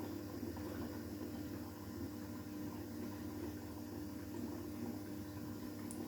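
Washing machine on its final rinse, filling with water while the drum turns, with a steady hum and running water.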